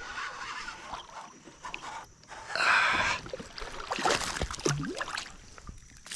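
A hooked bass splashing at the water's surface as it is reeled to the kayak. The loudest splash comes about two and a half seconds in, and more splashes follow about four seconds in as the fish jumps clear of the water.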